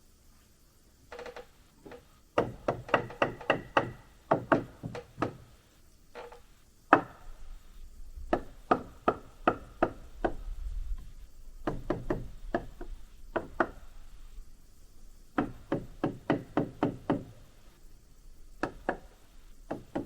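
Hammer driving nails into wooden framing lumber: five runs of quick, sharp strikes, several a second, with short pauses between runs.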